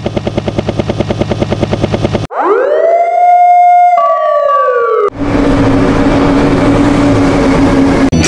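A sequence of vehicle sound effects: first a helicopter's rotor chopping, about eight beats a second; then, after about two seconds, a siren wail that rises, holds and falls away; then, about five seconds in, a steady engine drone.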